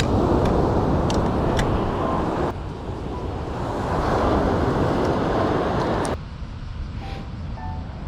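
Steady rushing outdoor noise with no clear pitch, dropping abruptly in level about two and a half seconds in and again about six seconds in.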